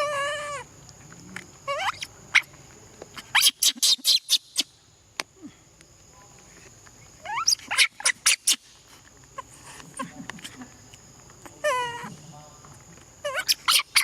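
Young monkey calling loudly: short pitched cries under a second long, alternating with clusters of rapid, sharp high-pitched shrieks.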